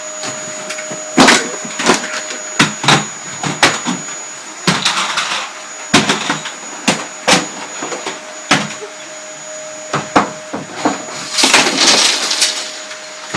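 Vacuum cleaner running steadily with a thin high whine, broken by irregular sharp knocks and bumps about once a second as it is worked over the room. Near the end, a louder rushing burst.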